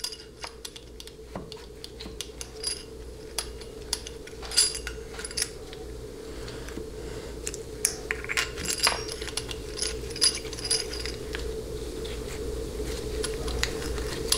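Irregular light metallic clicks and clinks of a transmission valve body being wiggled and shifted on the transmission case, working its center bolt until it bites into the threads, over a steady low hum.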